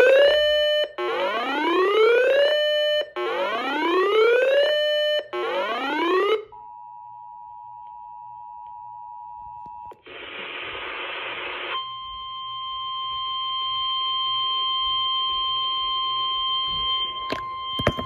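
Emergency alert tones from a radio: four rising whoop tones about two seconds apart, then the steady two-note EAS attention signal for a few seconds. A short burst of hiss follows, then a steady high alert tone runs to the end, with a few clicks near the end.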